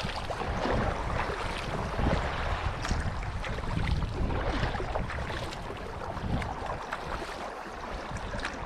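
Water rushing and splashing against a sail-driven kayak's hull as it moves across choppy water, with gusty wind buffeting the microphone.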